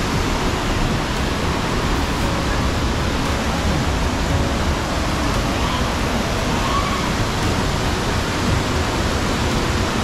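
Rushing water of a fast mountain river pouring over boulders in rapids, a steady, unbroken rush.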